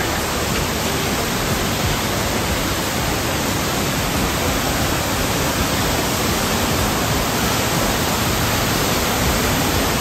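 Large waterfall falling into a pool: a steady, even rush of water.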